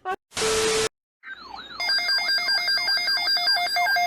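A half-second burst of static, a short gap, then electronic ringtone-like tones: steady high notes under a warbling tone and falling chirps about three a second.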